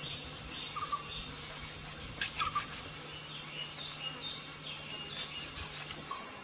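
Short bird calls chirping here and there over a steady low hum that stops near the end, with a couple of faint clicks.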